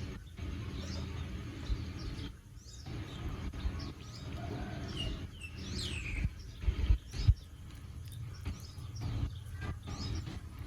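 Birds chirping in short calls, one a falling whistle about six seconds in, over a low steady rumble. A few knocks about seven seconds in.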